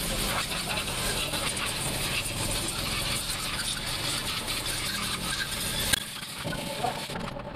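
Compressed-air blow gun hissing and spluttering as it blows out a small scooter's cylinder head. A sharp click comes about six seconds in, after which it is quieter.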